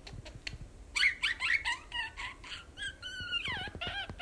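Budgerigar chattering: quick, pitch-sliding chirps starting about a second in, then a longer whistled note that slides down in pitch near the end.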